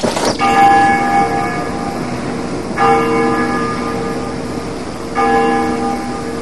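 A church bell tolling slowly, struck three times about two and a half seconds apart, each stroke ringing on and fading.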